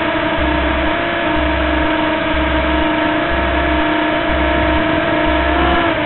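Background music: a sustained electronic drone of held tones over a steady bass pulse about once a second.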